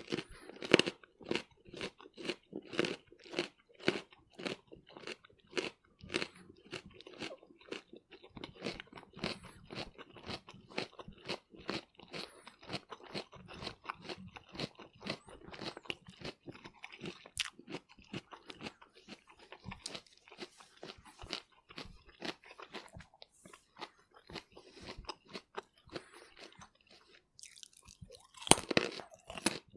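Someone biting and chewing raw carrot: a rapid run of crisp crunches, several a second, easing off in the middle, with a louder fresh bite near the end.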